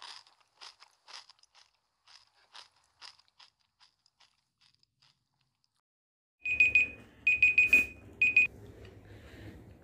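Faint crunches of crisp panipuri shells being bitten, thinning out over the first few seconds. Then, about two-thirds of the way in, a tablet's countdown timer alarm starts beeping in short high-pitched pulses with a low hum under them, marking the end of the two-minute challenge.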